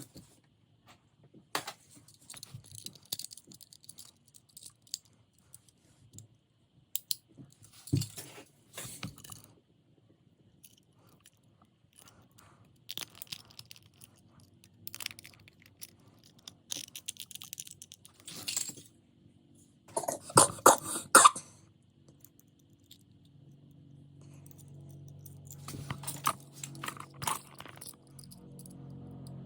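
Small die-cast toy cars being handled: scattered light clicks, clinks and rattles, with a louder flurry of rattling about two-thirds of the way in. A low steady hum comes in over the last several seconds.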